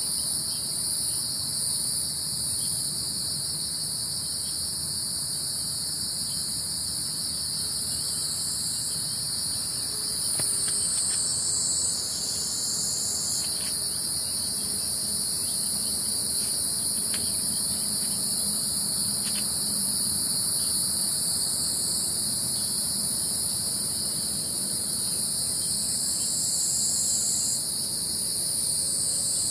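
Steady chorus of insects: a continuous high, shrill buzz, with a second, even higher layer that shifts in pitch a couple of times.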